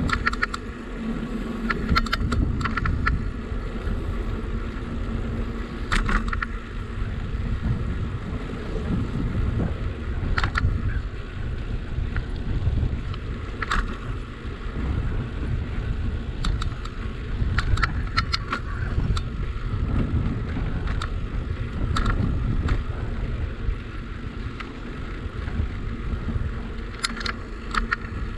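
A bicycle rolling along with a steady low rumble of tyre and wind noise on the microphone, and light rattles and clicks every few seconds.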